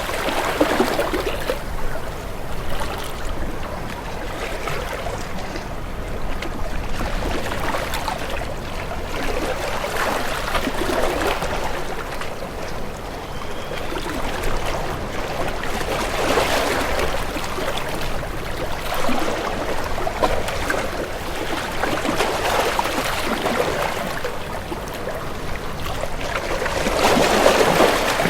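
Water washing and splashing in uneven swells that build and ease every few seconds, with a louder swell near the end.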